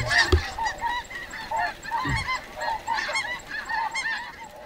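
A large flock of snow geese calling all at once: a dense, unbroken chorus of short, high, overlapping honks.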